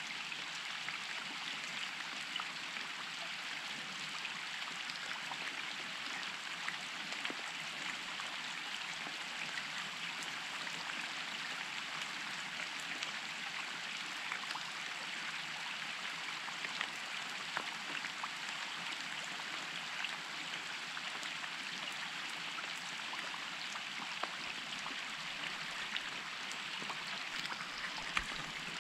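Steady rain falling on a lake's surface: a dense, even hiss dotted with many sharper individual drop hits.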